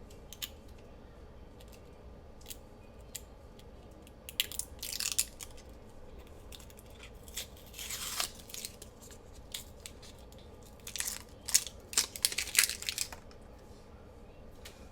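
Packaging and paper being handled: scattered crinkling and rustling in short clusters, the main ones about four seconds in, around eight seconds, and between eleven and thirteen seconds.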